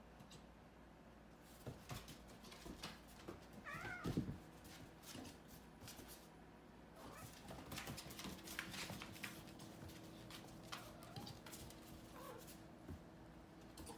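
A kitten meows once, loudest about four seconds in, amid scattered clicks and scuffles of a kitten's and a puppy's claws on a hardwood floor as they play.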